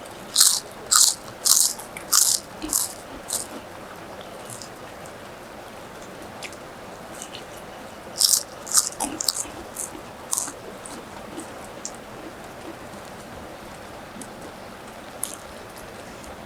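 Close-up crunching bites and chewing of crisp food, two runs of about half a dozen crunches each, roughly two a second, over a steady hiss of rain and rushing water.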